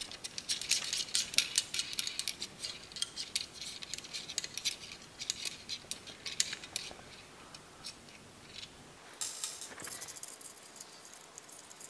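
Quick, light metallic clicks and rattles of a 10 mm wrench turning nuts off the bolts of the pump's metal suspension bracket. The clicking is thickest in the first seven seconds or so, with a short scraping rattle about nine seconds in, then thins out.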